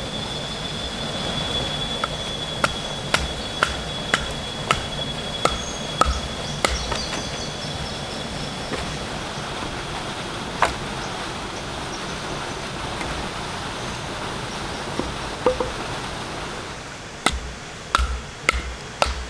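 Repeated sharp knocks, about two a second for the first seven seconds, then a few more near the end, over a steady hiss. A thin, high, steady tone fades out about nine seconds in.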